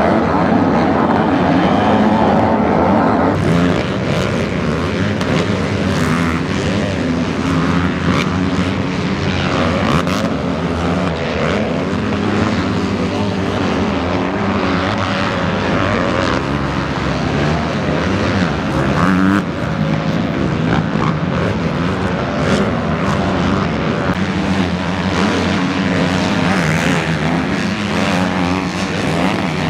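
Motocross bikes racing: a pack of dirt-bike engines revving hard and changing pitch as they shift and accelerate. The engine noise changes about three seconds in.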